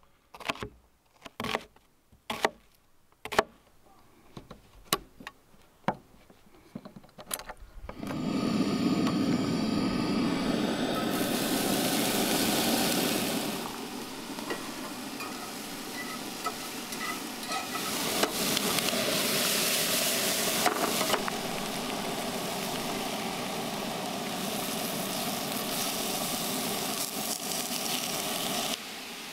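A kitchen knife chopping peppers on a plastic cutting board, about a dozen sharp taps, then from about eight seconds in, diced vegetables and ground beef sizzling and frying in a cast-iron skillet on a camp stove. The sizzle is loudest at first and settles lower after a few seconds.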